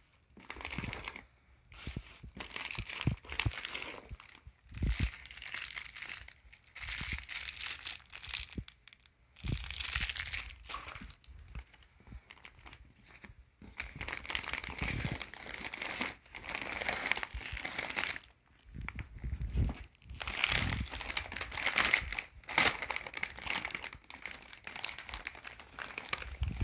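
Clear plastic packaging crinkling and rustling in irregular bursts as hands rummage through bagged clothes in a cardboard box and lift them out.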